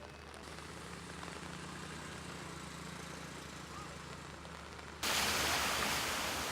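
Outdoor street ambience with a faint engine hum, then an abrupt cut about five seconds in to a louder, steady hiss.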